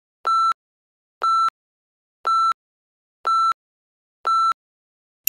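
Countdown timer sounding five short electronic beeps, one per second, all at the same pitch, counting off the final seconds before zero.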